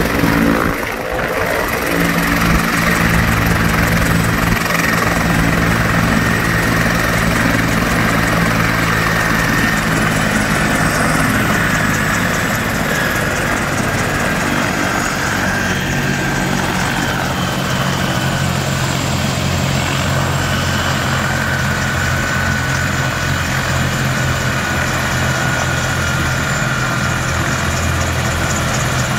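Helicopter running on the ground just after landing: steady turbine and rotor noise with a high whine that slowly falls in pitch.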